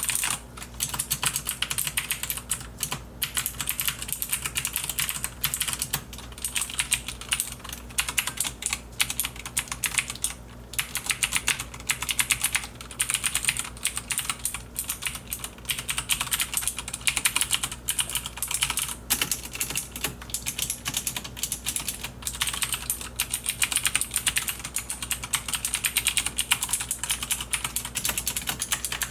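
Typing on a Logitech G610 mechanical keyboard with Cherry MX Blue switches: a fast, continuous run of crisp clicky keystrokes, pausing briefly a few times.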